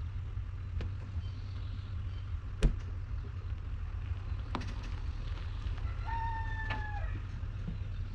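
A rooster crows once, for about a second, near the end, over a steady low rumble. A single sharp knock comes a few seconds in.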